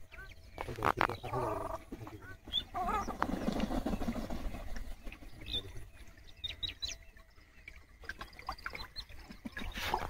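Waterbirds calling across a wetland: a run of pitched calls about a second in, then scattered short high chirps, over a steady low wind rumble on the microphone.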